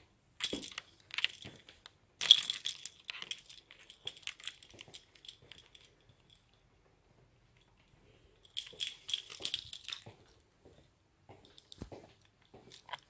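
Bursts of light clattering and rattling, one over the first three seconds and another about nine seconds in, with a single low thump near the end.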